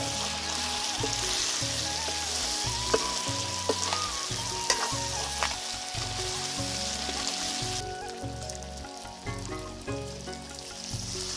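Duck and papaya curry sizzling in a black wok as a steel ladle stirs it, with a few sharp scrapes and knocks of the ladle against the pan. The sizzle drops away about three-quarters of the way through.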